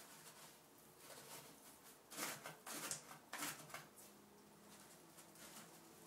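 Three short, faint scratchy rustles about half a second apart, starting a little after two seconds in, from a cat's paws shifting and scratching on a plastic toilet-training seat.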